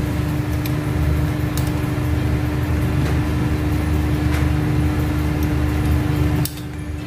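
A steady motor hum, a low rumble with one constant drone, drops off suddenly about six and a half seconds in. Over it come a few faint clicks of metal tongs against the pot as spaghetti is lifted out.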